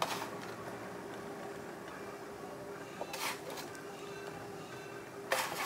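Three brief soft scrapes and rustles of crumble topping being put on and spread over apples in a baking dish: one at the start, one about three seconds in, one near the end. A faint steady hum runs underneath.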